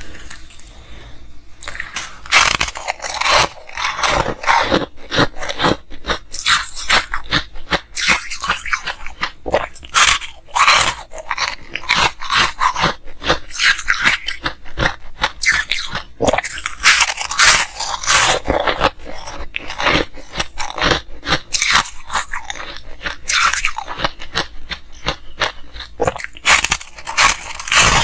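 Ice being bitten and chewed: a dense run of sharp cracks and crunches, starting about two seconds in.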